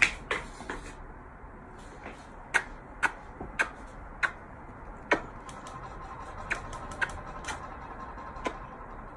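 A person repeatedly kissing a cat: short, sharp kiss smacks, about a dozen at irregular intervals, over a low steady background hum.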